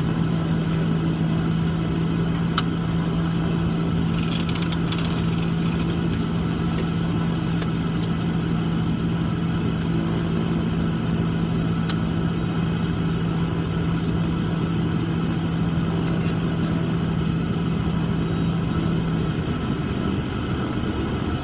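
Twin-engine Cessna 340's turbocharged six-cylinder piston engines and propellers running at low taxi power, heard inside the cockpit as a steady drone. A strong low hum in the drone drops away near the end, and a few light clicks sound in the first half.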